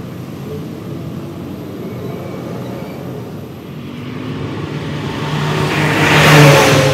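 Road traffic: a steady rumble of passing vehicles, with one vehicle coming closer and passing loudest near the end.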